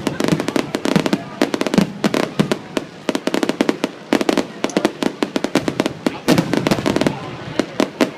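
Fireworks grand finale: a dense, rapid barrage of aerial shell bursts and crackling reports, many explosions a second without let-up.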